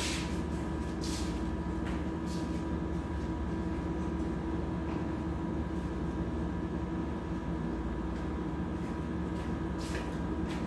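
Steady mechanical hum holding several constant tones, with a few faint knocks near the start and again near the end.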